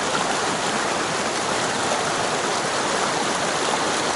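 Mountain stream water rushing, a steady even noise.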